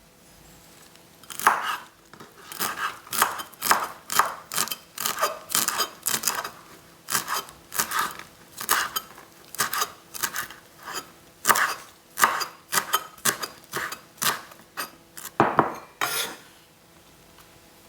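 A kitchen utensil knocking and scraping against a dish in quick repeated strokes, about two to three a second. The strokes start about a second and a half in and stop shortly before the end.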